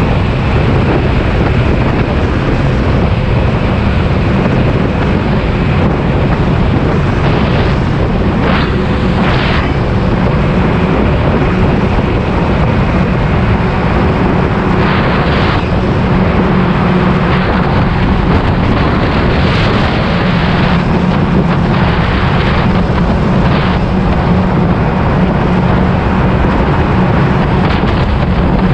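Honda PCX scooter riding at speed through a road tunnel: steady wind rush on the microphone over the low hum of its single-cylinder engine and tyre noise, with a few brief whooshes about 8, 15 and 21 seconds in.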